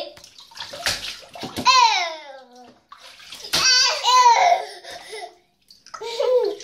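Young children in a bathtub giving a few high-pitched squeals and babbles, one falling in pitch about two seconds in, with light splashing of bathwater.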